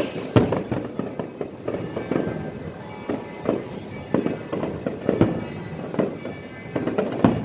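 Aerial fireworks bursting in quick succession, a string of bangs and crackles several a second. The loudest bangs come about half a second in and near the end.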